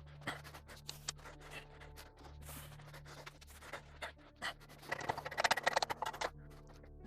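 Small-block Chevy 350 cylinder head being stripped of its valves: scattered metal clicks and scrapes of tools on the head and valve springs, with a quick clatter of clicks about five seconds in.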